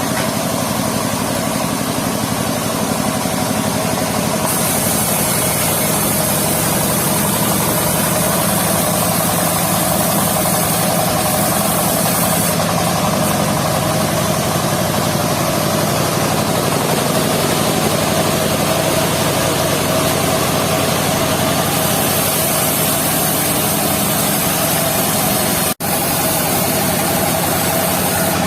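Mobile circular sawmill running steadily, its engine driving the saw blade, with a high hiss that comes in twice and fades out again. The sound cuts out for a split second near the end.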